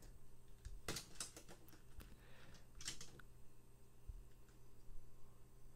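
Faint clicks and light clatter of diecast toy cars being set down by hand into the starting gate of a plastic race track: a cluster of clicks about a second in, another near three seconds, and a soft thump a little later.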